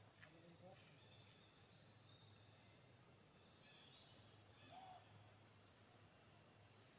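Near silence: faint forest ambience with a steady high insect drone and a few faint, short chirps.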